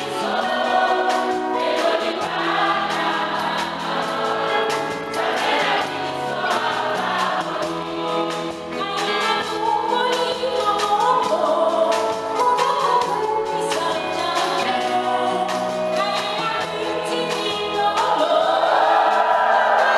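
A mixed choir of men and women singing a gospel song together, the sound steady and full.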